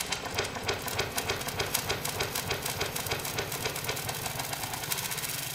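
Experimental electronic music made with Uhhyou synthesizer plugins: rapid, unevenly spaced clicks and ticks, several a second, over a steady low tone.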